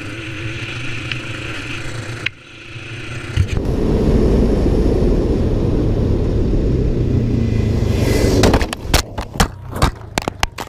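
ATV riding: the quad's engine runs under a loud low rushing noise. Near the end comes a rapid series of sharp knocks and bangs, typical of the quad crashing.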